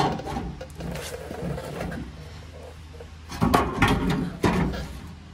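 Clunks and scrapes of a sheet-metal replacement rocker panel being handled against the truck's cab, with a cluster of knocks about three and a half to four and a half seconds in.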